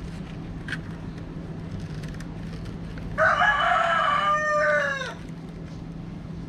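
A rooster crowing once, about three seconds in: one call of about two seconds that drops in pitch at the end. Before it, a few faint clicks of the plastic nursery pots being handled.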